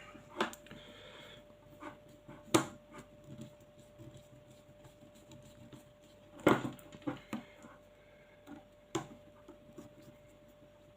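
Small screwdriver and the plastic-and-metal hop-up unit of a VSR10-type airsoft rifle being handled while its front screws are undone: a few scattered clicks and taps, the loudest about two and a half and six and a half seconds in, over a faint steady hum.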